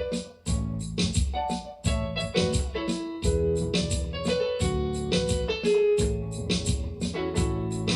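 Electronic keyboard playing in a piano voice: chords and melody notes struck in a steady rhythm over a bass line.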